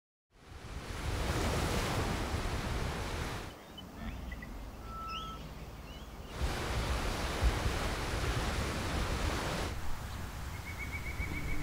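Outdoor ambience of wind and gently lapping lake water: a steady rushing noise that fades in at the start and changes level abruptly a few times. In a quieter stretch in the middle a few faint chirps sound, and a short rapid trill comes in near the end.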